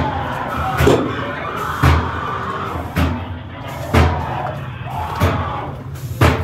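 Heavy slams or booms about once a second, seven in all, over a droning background soundtrack.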